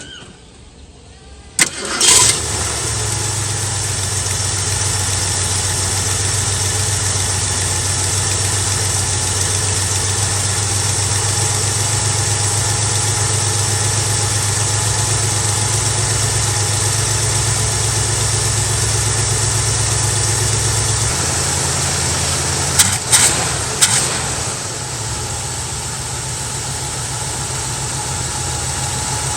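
Carbureted Mustang engine cold-started: it cranks and catches about two seconds in, then runs at a steady fast idle on a newly replaced spark plug wire in place of one that was arcing and causing a misfire. Near the end a few sharp knocks come, and the engine settles to a lower, quieter idle.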